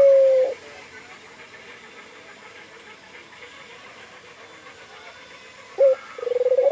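A puter dove (ringneck dove) cooing: the held end of one coo fades out about half a second in. After a pause, a short note and a rolling, pulsing coo that rises into a long held note start the next call near the end, over a faint steady hiss.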